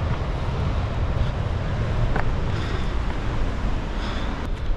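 Wind buffeting the microphone as a steady low rumble, with a few light clicks about two seconds in and near the end.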